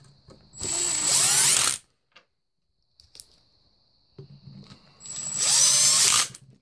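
Cordless driver running bolts into the Polaris Scrambler transmission case in two bursts, the first over a second long and the second about two seconds. Each starts with a thin motor whine and gets louder as the bolt seats. The bolts are only being snugged up, to be torqued later.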